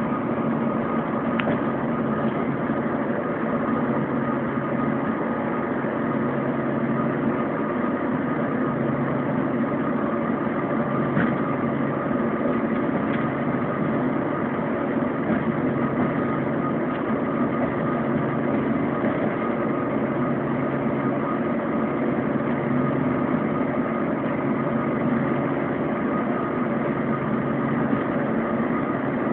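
Bus engine and road noise heard from inside the passenger cabin: a steady drone with a low, gently pulsing hum and a few faint clicks.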